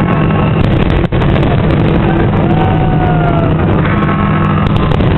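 Fireworks display heard as a loud, steady rumble of bursts with a crowd, and a few whistles gliding down in pitch over it.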